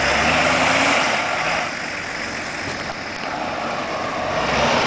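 Nissan Patrol 4x4's engine running hard under load while bogged in deep mud, with a steady hum under it; the level dips a little in the middle and swells again near the end.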